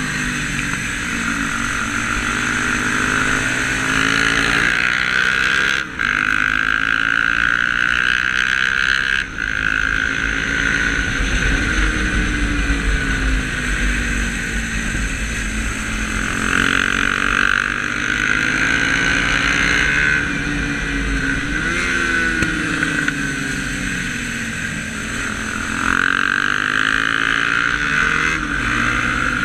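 Onboard sound of a Honda CB300 motorcycle engine at track pace, its revs repeatedly rising and falling through the corners, with heavy wind noise on the microphone. Two brief cuts in the sound come about six and nine seconds in.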